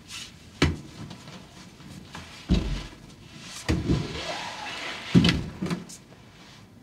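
A series of heavy thuds and bangs, five in all, irregularly spaced, with a hissing rush between the third and the fourth.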